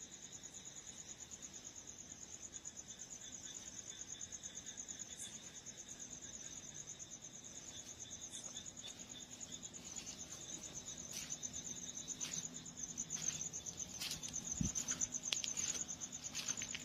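Crickets chirping in a steady, rapidly pulsing high trill. Over the second half, more and more sharp clicks and scuffles come from dogs play-fighting on the rubber-tiled floor, with one dull thump.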